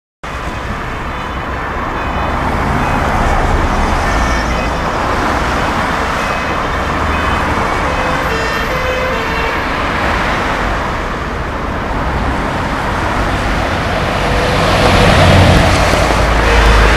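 Fire engine on an emergency response moving through traffic, its engine and road noise growing loudest as it comes close about fifteen seconds in.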